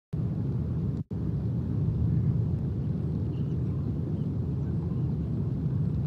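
Steady low outdoor rumble, an even noise with no distinct events, with a momentary dropout about a second in.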